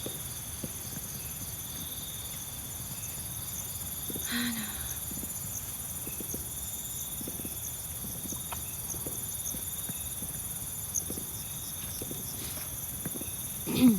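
Crickets and other night insects chirping in a steady high trill over a low wind rumble. A brief human voice sound comes about four seconds in, and a louder short one near the end.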